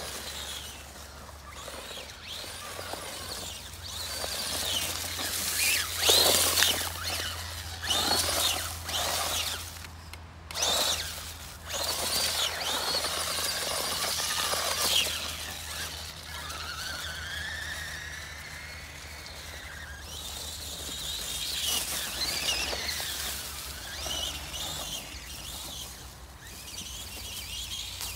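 Traxxas Teton 1:18 RC truck driving over forest ground: its electric motor and gears whine, rising and falling in pitch as it speeds up and slows, with several louder bursts of noise from the tyres and ground.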